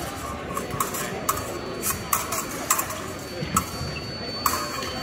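Épée blades clinking together in a run of short, sharp, irregular metallic strikes, about eight in a few seconds, over a murmur of voices in a large hall.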